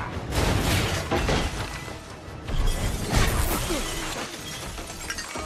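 A film action-scene mix: a music score under crashes and breaking glass, with several sudden hits, the loudest about three seconds in.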